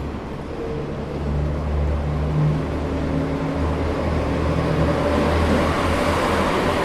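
A vehicle's low engine rumble with a few steady hum tones, growing steadily louder as it approaches.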